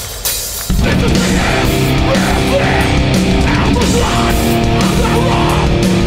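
Live metallic hardcore band with distorted guitars, bass and drums. After a single cymbal hit, the full band comes in abruptly under a second in and plays on loud.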